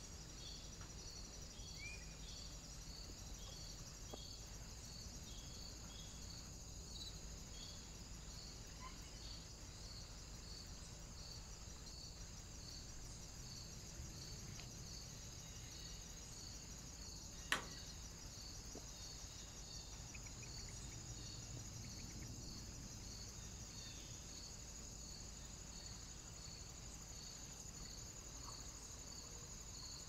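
Faint insect chirping, a short high chirp repeating evenly a little more than once a second over a constant high-pitched hiss. A single sharp click about seventeen seconds in.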